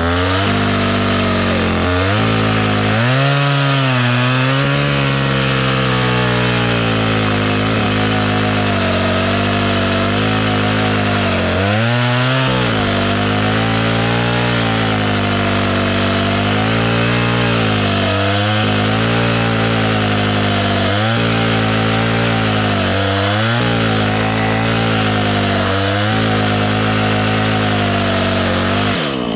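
Husqvarna two-stroke chainsaw running at high revs while cutting a dead elm trunk. Its pitch dips briefly every few seconds as the chain loads up in the cut, then falls near the end. The chain is dull.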